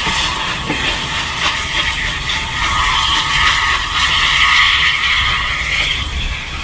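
Steam locomotive running away along the track: a low rumble with a steady high-pitched squeal of wheels on the rails.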